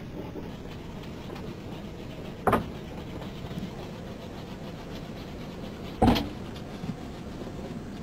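Steady low rumble of a car's cabin heard from the back seat, broken by two loud thumps about three and a half seconds apart.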